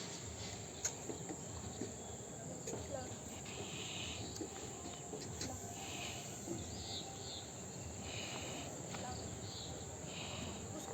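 Faint chirring of insects, a steady high-pitched drone with softer chirps coming every second or so.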